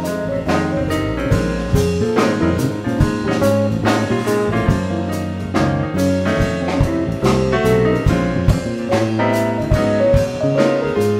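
A band playing an instrumental passage with no vocals: a drum kit keeping a steady beat under bass and piano-like keyboard chords.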